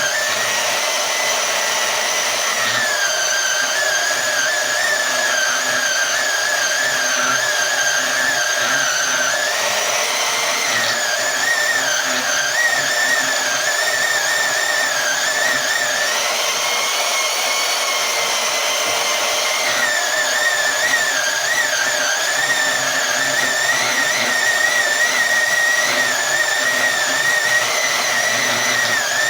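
Harbor Freight portable band saw cutting through thick steel: a steady motor whine with a high, wavering tone from the blade in the metal, the saw working hard on the cut.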